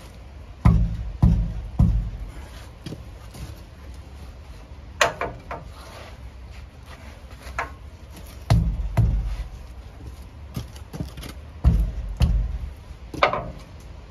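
Hammer blows against a corroded truck wheel to knock it loose from the hub: a dozen or so heavy thuds in irregular groups, two of them ringing metallically.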